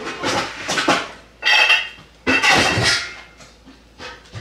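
Dishes and food containers being handled on a kitchen counter: several short bursts of clatter and rustle.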